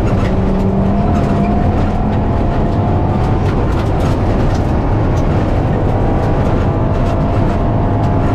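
Rally car engine running hard under load as the car accelerates, heard from inside the cabin along with dense tyre and road noise and a few sharp ticks.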